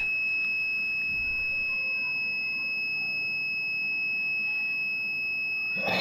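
Small piezo buzzer sounding one continuous high-pitched tone: the alarm of a magnetic reed-switch door sensor, signalling that the door is open. A brief burst of noise comes near the end.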